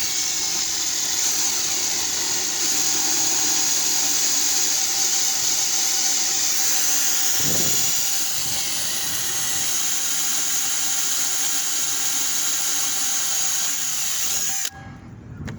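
Power drill with a 1/8 inch bit boring a pilot hole in a roof rack, running with a steady high whine for about fifteen seconds and stopping suddenly near the end.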